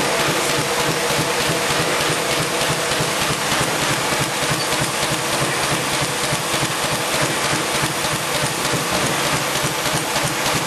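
IBIS Smart-binder saddle stitcher running: a steady mechanical clatter with a fast, even beat over a steady hum.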